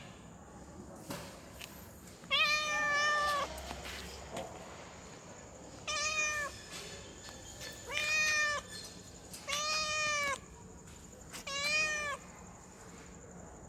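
Female cat in heat calling: five drawn-out meows a second or two apart, each rising and then falling in pitch, the first the longest. It is a heat call to attract a tom.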